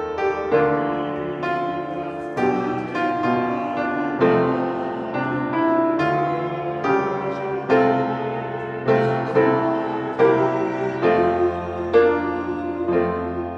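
Piano playing the psalter response, a slow hymn-like phrase of struck chords that begins to die away at the end.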